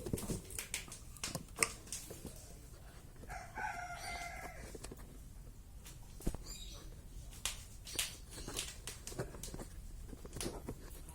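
A rooster crows once, about three seconds in, with a single drawn-out call of roughly a second and a half. Scattered sharp clicks and taps sound around it.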